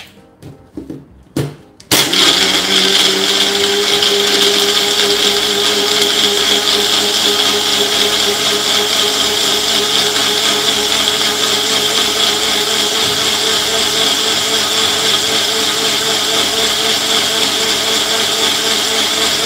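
A few clicks as the bullet blender's jar is seated on its motor base. About two seconds in, the blender motor starts and runs steadily, grinding raw mango, green chilli, coriander, ice and water into a smooth green liquid. Its whine rises slightly in pitch over the first few seconds.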